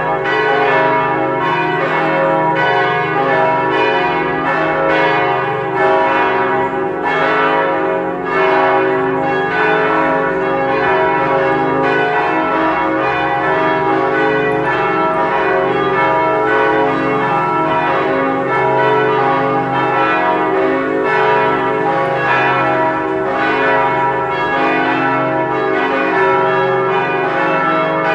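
Four church bells, tuned C-sharp, E, F-sharp and G-sharp, swinging and ringing together in a full peal: a continuous, irregular run of overlapping strokes over their sustained ringing tones.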